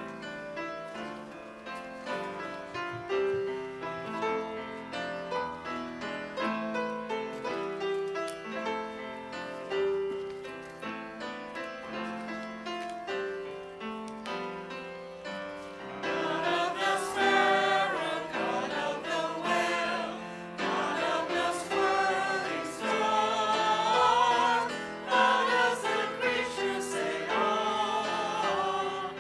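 A hymn played on a keyboard, first as an instrumental introduction; about halfway through, a group of voices comes in singing with the keyboard, and it gets louder.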